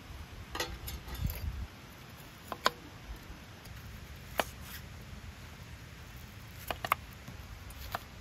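Kitchen knife slicing through an onion and knocking on a wooden cutting board: a handful of sharp, single knocks, irregularly spaced a second or two apart.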